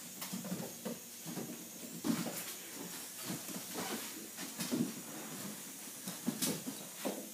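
A puppy's paws and claws scrabbling and pouncing on a tile floor: a string of irregular light knocks and scrapes, over a steady hiss.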